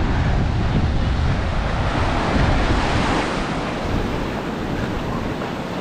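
Small waves breaking and washing foaming up a sandy beach, swelling about two to three seconds in, with wind buffeting the microphone as a low rumble.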